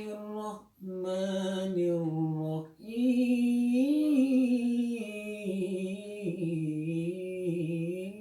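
A man chanting a Qur'anic recitation in the melodic qiraah style, holding long drawn-out notes with wavering ornaments. He breathes twice in the first three seconds, and the pitch climbs to a higher note about four seconds in before settling lower again.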